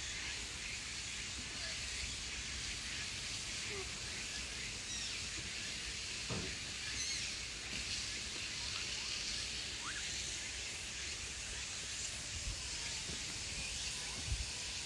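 Steady outdoor ambience hiss with a few faint, short calls scattered through it. A soft bump about six seconds in and another near the end.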